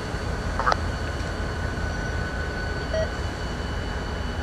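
Diesel locomotive idling in the yard, a steady low rumble, with a short beep about three seconds in.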